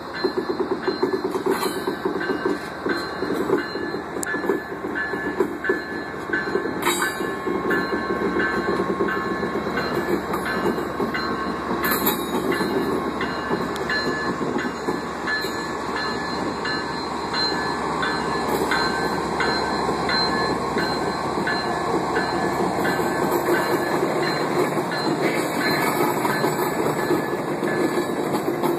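A diesel-hauled train rolling past close by, led by a GE ES44AC locomotive. Its engine runs steadily under a continuous low rumble, and the wheels click at an even rhythm over the rail joints.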